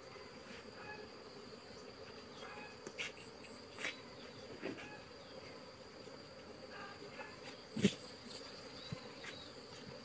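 Honeybees humming steadily around an opened wooden hive, with a few short knocks as the hive is worked, the loudest about eight seconds in.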